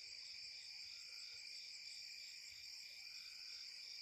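Faint chorus of night insects: several steady high trills layered with a pulsed chirping that repeats a few times a second.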